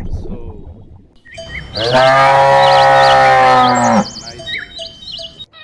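A cow mooing once, one long steady call of about two seconds in the middle, with faint high warbling chirps above it.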